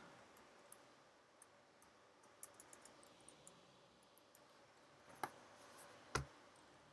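Near silence broken by a few faint computer-keyboard key clicks, two of them sharper, a little after five and six seconds in.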